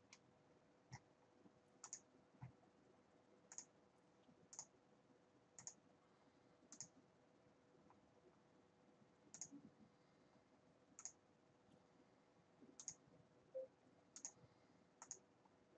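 Faint computer mouse clicks, about fourteen of them at irregular intervals roughly a second apart, over a low steady hum.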